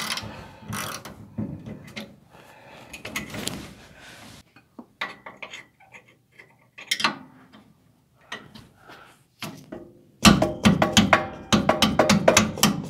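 Ratchet wrench clicking as the nut on a truck's lower rear shock-absorber bolt is backed off, then a few scattered metal clicks, and a burst of rapid clattering near the end.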